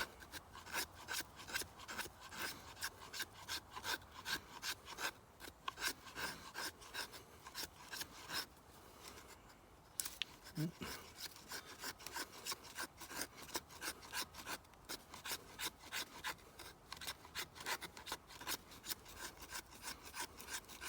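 Scandi-ground O1 carbon-steel bushcraft knife shaving wood in rapid, repeated scraping strokes, with a short pause a little before the middle.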